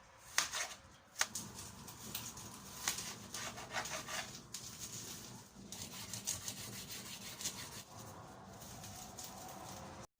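Kitchen knife cutting vegetables on a wooden chopping board: a couple of sharp knocks, then repeated scraping, rasping strokes of the blade against the board.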